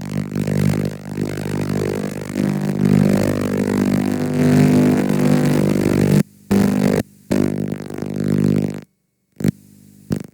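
Garbled playback audio from a damaged VHS tape: a loud low buzz with hiss over it, cutting out abruptly twice after about six seconds and stopping near nine seconds, with one short burst just before the end.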